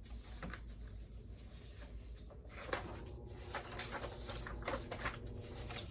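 Washing machine running with a steady low hum, with scattered keyboard key clicks at irregular intervals.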